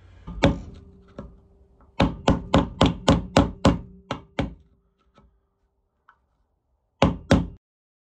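Hammer striking a steel punch to tap a drilled-out piece out of a Boss Smarthitch 2 plow hitch part. One blow, then a quick run of about nine blows at three to four a second, then two more near the end, with the metal ringing faintly between blows.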